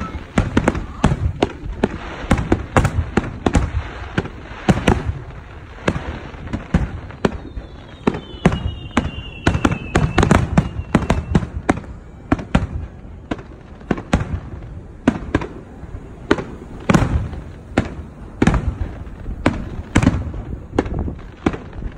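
Aerial fireworks shells bursting in a dense, continuous barrage of sharp bangs, several a second, with a falling whistle between about eight and ten seconds in.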